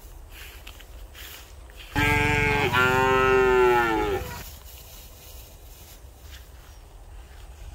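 A single loud moo from cattle, starting about two seconds in and lasting about two and a half seconds. It has a short break just after it begins, and its pitch drops away at the end.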